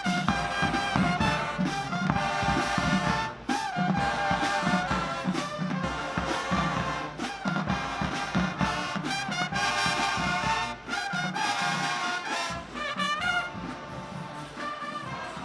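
A marching band playing, with brass (trumpets and trombones) over a low, pulsing bass and percussion.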